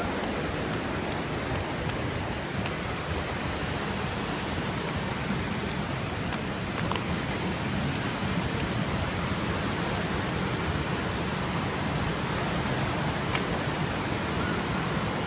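Steady rushing of running water, an even wash of noise that doesn't change throughout.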